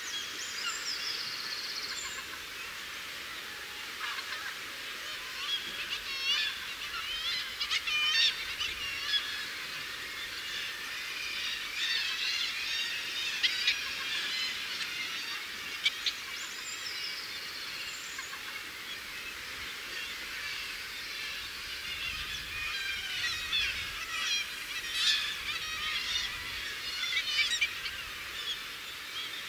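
Many seabirds calling at once: a dense, overlapping chatter of calls, with a falling whistled note about a second in and again about halfway through.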